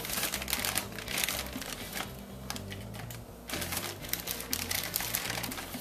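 A plastic bag of frozen mango chunks crinkling in dense, rapid rustles as a hand rummages inside it for pieces, with a short lull about three and a half seconds in.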